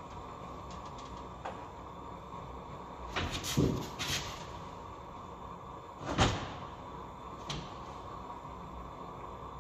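A short rattle of several knocks about three seconds in and one sharp knock about six seconds in as ladders on a rack are handled, over the steady hiss of a propane torch heating a branding iron.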